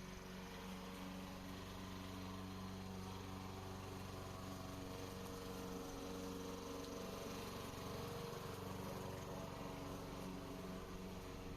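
Radio-controlled lawn mower's engine running with a steady, even-pitched hum.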